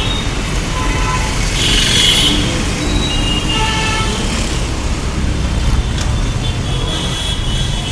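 Busy road traffic: vehicle engines running steadily with horns honking now and then, a short burst about two seconds in and again towards the end.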